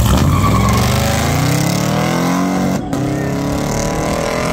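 A Chevrolet El Camino launching off the drag-strip line at full throttle, racing a second car in the other lane. The engine note climbs steadily, breaks briefly at a gear shift about three seconds in, then climbs again.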